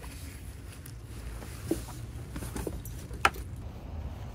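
Handling and rustling of a bag and its strap inside a vehicle, with a few light clicks and knocks over a low steady rumble; the sharpest click comes about three seconds in.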